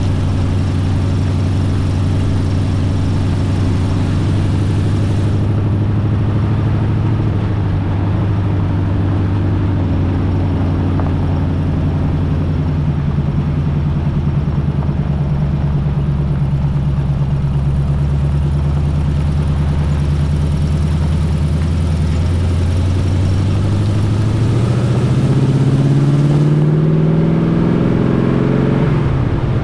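1980 Chevy K20 pickup's 350 small-block V8 running steadily under load while driving. Near the end its revs climb for several seconds, then drop suddenly, as at a gear change.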